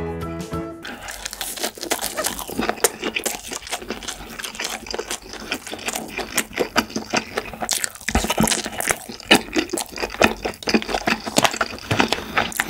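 Close-miked chewing of kimchi: wet crunching with mouth clicks and smacks in an uneven run. A guitar tune cuts off just under a second in.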